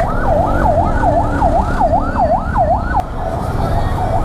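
Fast yelping electronic siren of an emergency vehicle, sweeping up and down about three times a second, cutting out about three seconds in, over a steady low rumble of street traffic.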